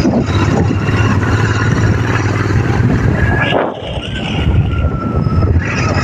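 Motorcycle engine running as the bike rides along a dirt track, with a rough rush of wind on the microphone. The engine eases off briefly a little past halfway, then picks up again.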